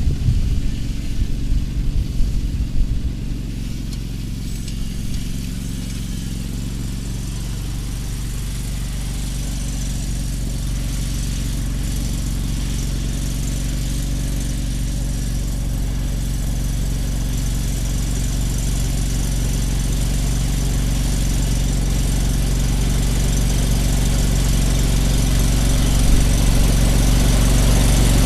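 John Deere riding lawn mower's engine running steadily under the load of a towed two-row garden marker, uneven for the first few seconds and then growing gradually louder.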